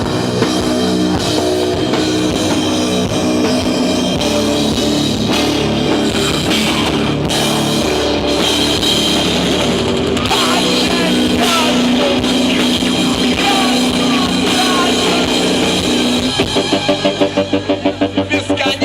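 Rock band playing an instrumental passage: drum kit, bass and distorted guitars, with no singing. Near the end the sound pulses rapidly, about seven times a second.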